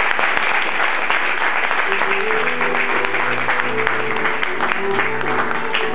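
Audience applauding steadily. About two seconds in, a recorded instrumental accompaniment starts under the clapping with held notes.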